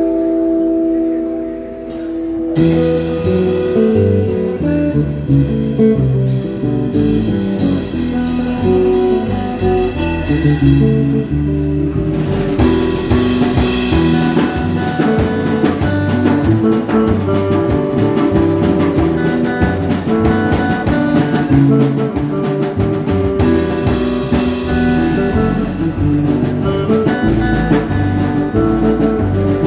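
A live jazz-blues trio playing, with guitar lead. For the first couple of seconds a few guitar notes ring alone, then the drum kit and a walking low line come in and the full band plays on.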